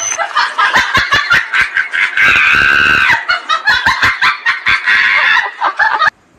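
A person's voice shrieking and laughing over a quick run of slaps as a hand and a dog's paw strike each other in a fast hand game. It cuts off suddenly near the end.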